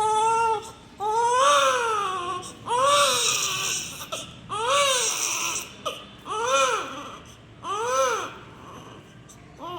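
Newborn baby crying: a run of five wails, each rising and then falling in pitch, with short pauses between them, going quieter near the end.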